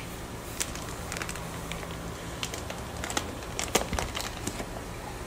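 Plastic fish shipping bag and cardboard box flaps being handled: a scatter of short crinkles, crackles and taps, most of them in the middle seconds, over a low steady hum.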